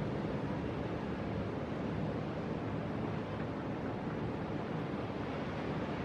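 Big ocean waves breaking: a steady, even wash of surf noise with no single crash standing out.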